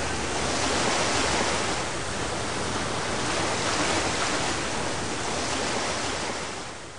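Storm-sea sound effect: a steady rush of waves and water that fades out near the end.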